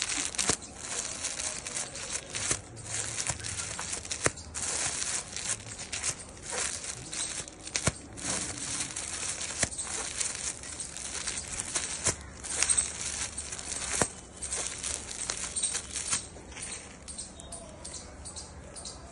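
Clear plastic garment bags crinkling and rustling as packed kurtis are handled and leafed through, with irregular sharp crackles.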